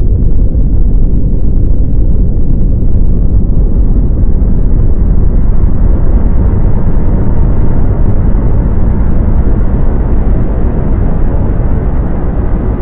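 Loud, continuous deep rumble, like distant thunder or a ground rumble. About midway it grows a little fuller in the upper range, and near the end it starts to fade.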